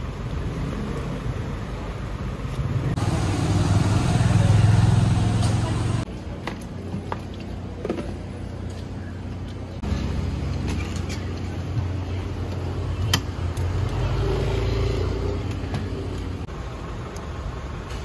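Street traffic: motor vehicle engines running close by, loudest for a few seconds about three seconds in, with a few sharp clicks and taps.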